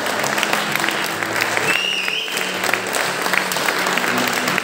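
An audience clapping steadily, with a short high whistle about two seconds in and music underneath.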